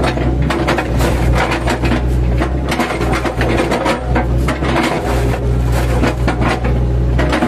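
Mini excavator engine running steadily while its bucket chops and scrapes into felled oil palm trunks, with many irregular woody knocks and crunches.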